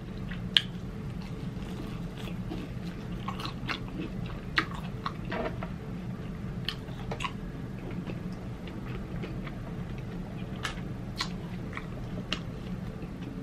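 A person chewing a bite of deep-fried Italian sausage egg roll with the mouth closed, close to the microphone. Scattered sharp crunches and mouth clicks are spread irregularly through the chewing.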